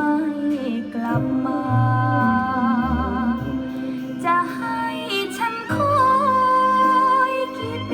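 Recorded music played from a vinyl record through a Linn Majik-IP's phono input: a singing voice holding long notes with vibrato over a bass line.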